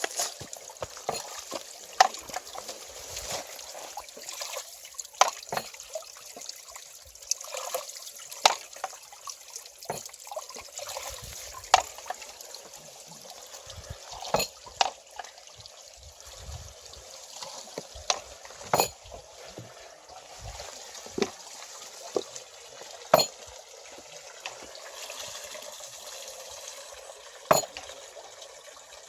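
Stream water trickling and splashing around a small water wheel, with sharp, irregular clicks or splashes every second or two.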